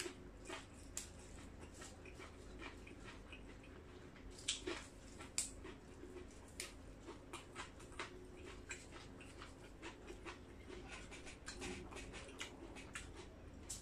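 Fresh herbs and crisp greens being picked, torn and snapped by hand from a platter: a scatter of small crackling clicks and snaps, a couple of them sharper about four and a half and five and a half seconds in.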